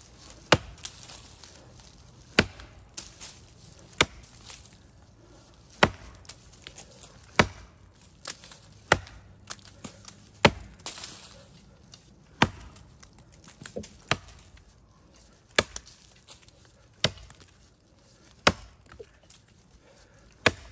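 An axe chopping into the trunk of a standing tree, cutting a notch in its side: a steady series of about thirteen sharp chops, roughly one every one and a half to two seconds, some followed by a lighter knock.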